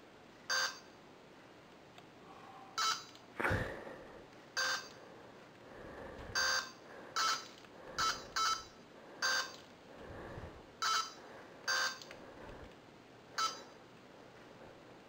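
Lego Mindstorms NXT brick beeping as its left and right buttons are pressed to calibrate the ultrasonic sensor: about a dozen short electronic beeps at irregular intervals. There is a knock about three and a half seconds in.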